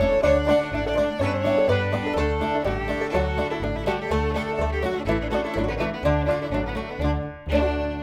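Bluegrass music with banjo and fiddle over a steady bass beat, ending on a final chord that rings out near the end.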